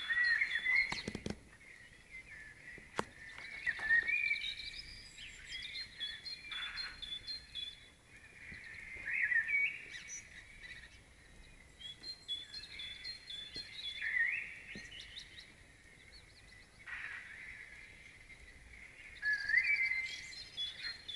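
A songbird singing at night: short warbling phrases every few seconds, separated by pauses of faint background hiss. A few sharp clicks sound in the first second or so.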